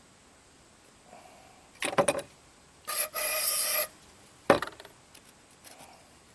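Metal carburetor parts from an old Briggs & Stratton small engine being worked over with hand tools during cleaning: a few rattling clicks, a harsh rasping noise lasting about a second, then a single sharp knock.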